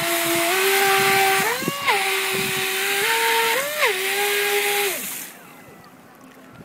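Small RC jet boat held in place, its pump motor whining at a steady pitch that steps up and down with the throttle, with two quick revs, over the hiss of its water jet spraying out the stern. The motor and spray cut off about five seconds in.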